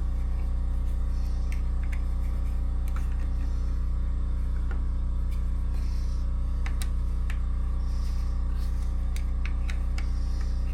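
Metal lathe running with a steady low hum, with scattered light clicks and taps from tooling being handled.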